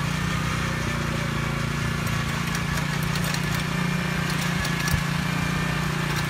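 Small engine of a walk-behind powered tiller/cultivator running steadily as it tills loose soil.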